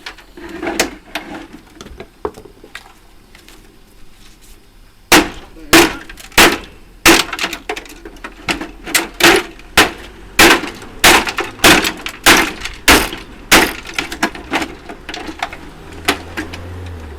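A run of sharp, loud knocks, about two a second for some nine seconds, as the stripped-down mobile air conditioning unit is struck and broken apart for scrap; a few lighter knocks come before it.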